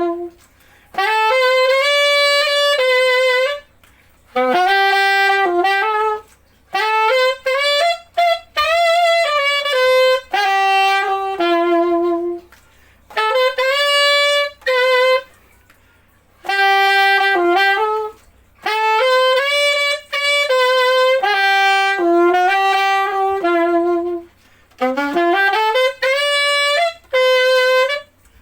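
Yamaha YAS-855 Custom Z alto saxophone played solo and unaccompanied: short melodic phrases of a few seconds each, separated by brief pauses, with some notes scooped up into pitch.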